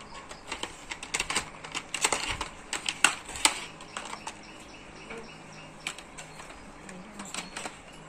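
Hard plastic toy construction vehicles clattering and clicking as they are handled and knocked about, with a quick run of sharp clicks in the first few seconds and only scattered ones after that.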